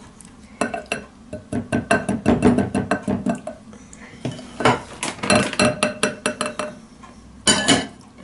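Silicone whisk beating a thick cream mixture in a glass bowl, rapping against the glass in runs of quick clicks. Near the end a ceramic plate clatters down onto the bowl as a lid.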